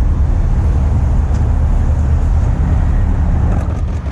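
Steady low rumble of vehicle and street traffic noise.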